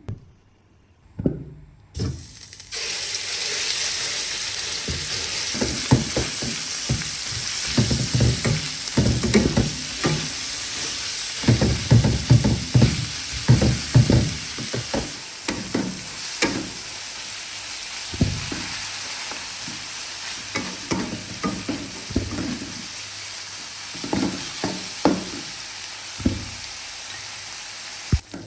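Food frying in hot oil in a pan, the sizzle starting suddenly about two seconds in after a couple of knocks, then running steadily while a spatula stirs and scrapes against the pan in irregular knocks.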